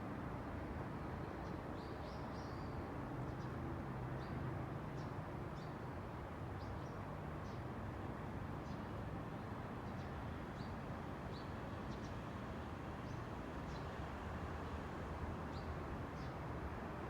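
Steady outdoor rush of wind and distant road traffic, with small birds giving short, high chirps about once a second.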